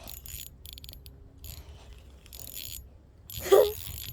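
Small fishing reel on an ice fishing rod being cranked in spurts to bring in a hooked fish, its gears whirring and clicking. A short voice sound about three and a half seconds in.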